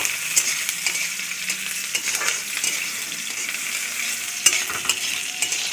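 Chopped onion and green chillies sizzling in hot oil in a pan, frying toward golden brown, a steady hiss with scattered crackles and a sharp click about four and a half seconds in.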